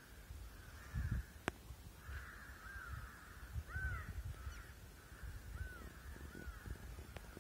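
Birds calling: several short calls that rise and fall in pitch, repeating every second or two, over a low uneven rumble on the microphone. One sharp click about a second and a half in.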